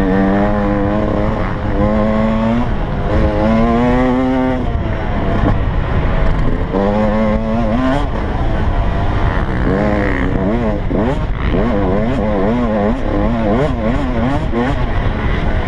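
Yamaha YZ125 two-stroke motocross engine revving hard through the gears, its pitch climbing and then dropping at each shift. About ten seconds in it turns to a quick wavering up and down as the throttle is worked over bumpy ground.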